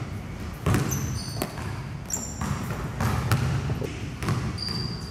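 A basketball dribbled on a gym floor, several sharp bounces at an uneven pace, with brief high-pitched squeaks of sneakers on the floor.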